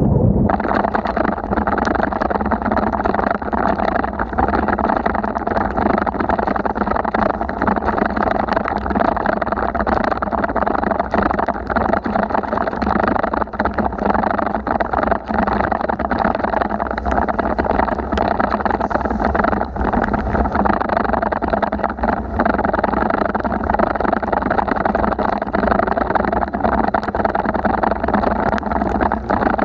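Steady rushing noise of a bicycle ride in heavy rain, wind and water on the microphone with tyres on the wet road, with many small sharp ticks scattered throughout.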